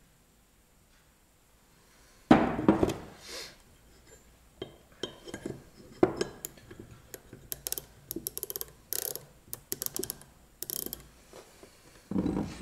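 Ground steel parallel bars knocking against a wooden bench and being handled in a hand micrometer. A loud knock with a short ring comes about two seconds in, then a run of small metal clicks and clinks as the micrometer is set and turned, and a second knock near the end.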